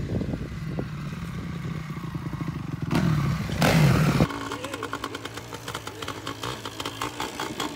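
Dirt bike engine running steadily, then revving up loudly about three seconds in as the bike passes close. After a sudden change, a motorcycle engine runs more quietly with a steady, even beat.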